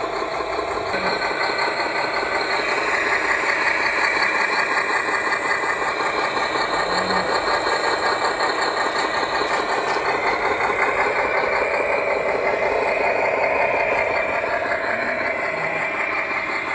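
Sound module of a scale RC Hino 500 truck playing a diesel truck engine idling through its small speaker, steady and thin with little bass, a little louder through the middle.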